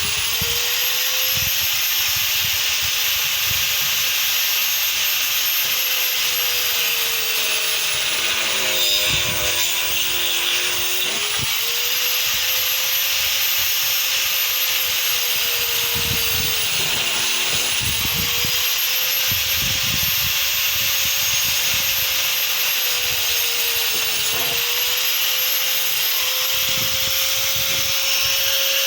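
Angle grinder cutting into a hardwood plank: a steady high motor whine over the grinding of the disc on the wood. The motor's pitch sags under load a few times, most deeply about nine to eleven seconds in.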